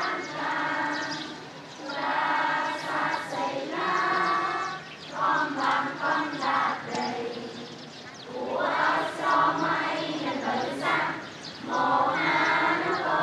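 A large group of schoolchildren singing the national anthem together, in phrases separated by short breaks.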